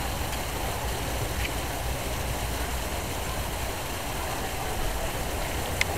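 Steady background noise: a constant low rumble under an even hiss, with one sharp click near the end.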